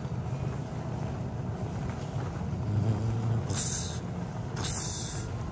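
Airport terminal background noise: a steady low rumble, with two brief hissy rustles a little after halfway.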